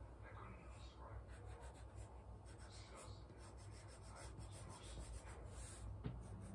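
Faint scratching and rubbing of hand writing on paper, over a low steady hum.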